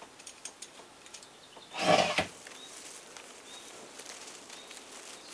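Light clicking of plastic plumbing fittings being worked by hand, then one loud, short noisy sound about two seconds in, followed by a few brief, high bird chirps.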